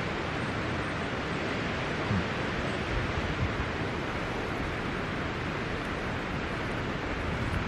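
Steady rush of wind and surf on a rocky shore in rough, windy weather, with a couple of brief low bumps a little after two and three seconds in.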